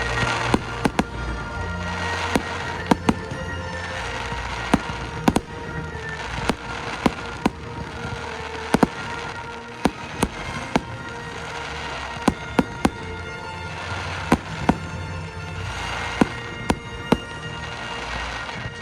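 Fireworks going off: many sharp bangs at irregular intervals, some in quick pairs, over swells of crackling. Music plays steadily underneath.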